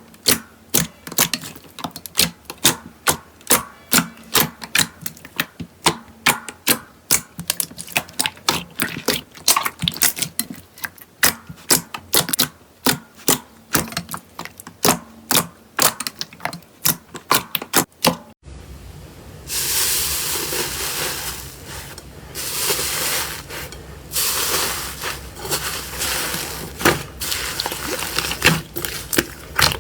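Slime being worked by hand: a long run of sharp clicking pops, two to three a second. Then, after an abrupt change, a louder stretch of hissing, crackling sounds that swell and fade every second or two.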